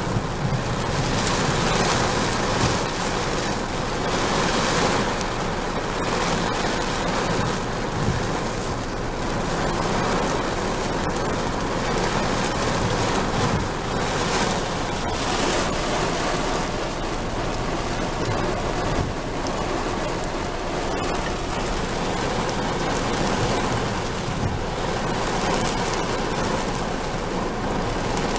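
Heavy tropical-storm rain pelting a car's windshield and roof, heard from inside the car, swelling and easing with the gusts.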